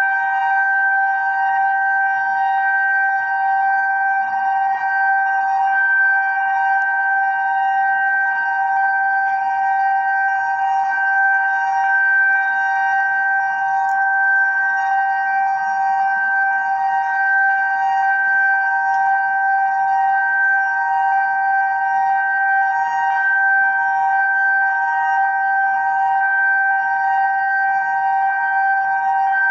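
Reverse-wired FuryBolt 1003A fire siren sounding a loud, steady two-note tone, held at a constant pitch as a fire signal test.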